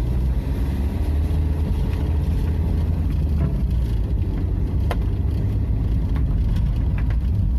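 A vehicle's engine running steadily under load as it climbs a steep, broken road, with a couple of sharp knocks about five and seven seconds in.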